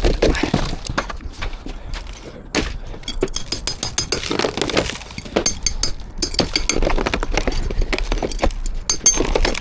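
Brittle old conservatory roof sheets cracking, snapping and clattering in a run of irregular knocks as the roof is broken up and pulled apart.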